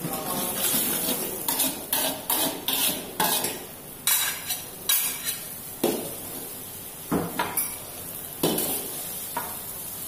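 Metal spatula scraping and knocking against an aluminium wok while eggs are scrambled: a dozen or so irregular clanks and scrapes over a steady frying sizzle.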